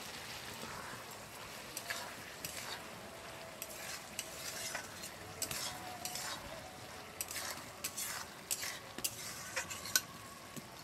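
A spatula stirring and scraping chopped bottle gourd in a pan over a steady sizzle, with irregular scrapes and clicks throughout, as sugar and ground rice paste are mixed in.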